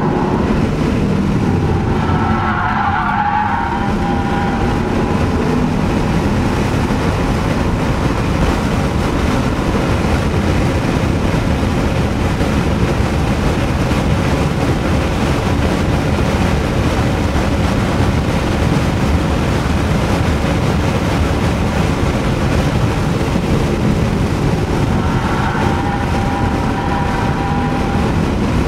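Audi S4 being driven hard on a race track, heard from inside the cabin: the engine runs under load with steady road and wind noise. Twice, about two seconds in and near the end, the tyres squeal briefly through corners.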